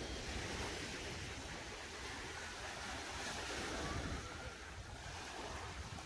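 Sea waves washing onto the beach, a steady surf noise, with wind rumbling on the microphone.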